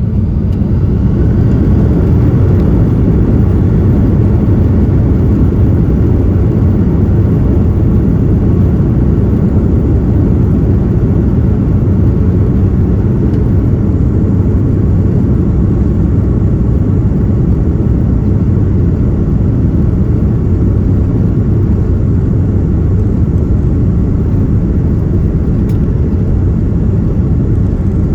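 Airbus A330-200's Pratt & Whitney PW4000 turbofans and rushing airflow heard from inside the passenger cabin: a loud, steady, deep rumble that steps up in level at the start and then holds even.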